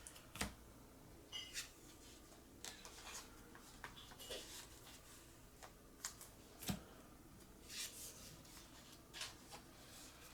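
Trading cards and plastic card sleeves being handled: faint rustles and light clicks, with two sharper taps, one about half a second in and one near seven seconds.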